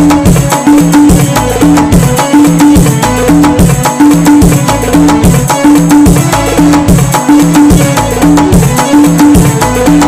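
Background music with a steady percussive beat and a short low note repeating in an even pattern.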